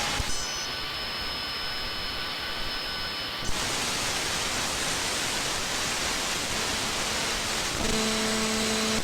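Shortwave radio static from an RTL-SDR receiver tuned between stations: a steady hiss. For the first few seconds the hiss is narrower, with faint steady tones in it, and about three and a half seconds in it opens out brighter. About a second before the end a steady low buzzing tone comes in under the hiss.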